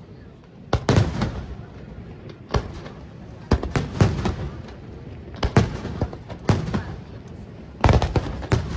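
Aerial firework shells bursting: about a dozen sharp booms in quick clusters of two or three, each with a short rumbling tail.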